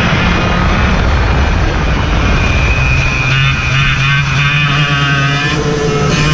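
A race vehicle's engine running steadily at speed on track, heard from onboard, with heavy wind rush on the microphone.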